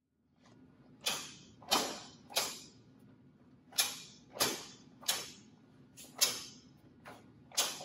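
Sharp snaps of a taekwondo uniform (dobok) cracking with each block and strike, about ten in a row at uneven spacing, each fading quickly. A low steady room hum runs beneath.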